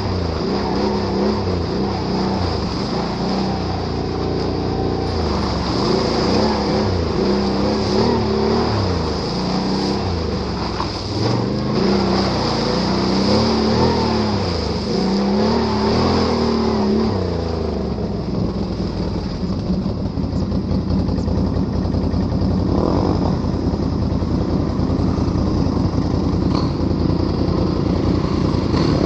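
Can-Am Renegade ATV engine revving up and down while riding off-road, its pitch rising and falling repeatedly for the first two-thirds, then running at a steadier pitch near the end.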